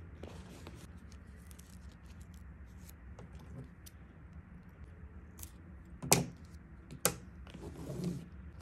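Small handling noises: soft rustling and light ticks over a low steady hum, with two sharp clicks or knocks about six and seven seconds in, the first the loudest sound.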